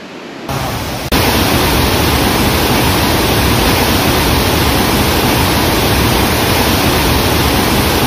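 Loud, steady rushing of a waterfall close by. It comes in about half a second in and grows louder about a second in.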